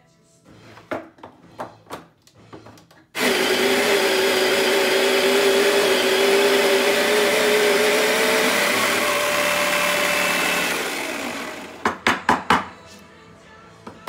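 A few light clicks as the grind setting is turned coarser, then a Baratza Sette conical burr grinder grinding a dose of espresso beans, a loud steady whine for about eight seconds whose pitch steps up near the end before it winds down. A quick run of sharp knocks follows.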